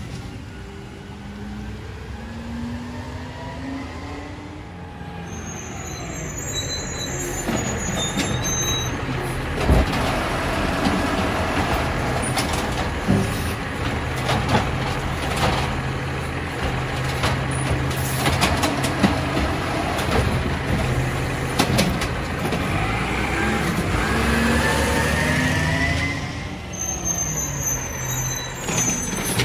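Automated side-loader garbage truck at work, its diesel engine running hard to power the hydraulic arm as it lifts and dumps a cart. Sharp knocks of the cart against the truck and rising hydraulic whines come through over the engine.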